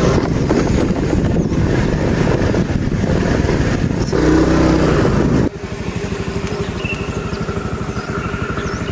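A motorcycle engine running loudly, swelling up about four seconds in. At about five and a half seconds it drops suddenly to a quieter, evenly pulsing run with a steady hum.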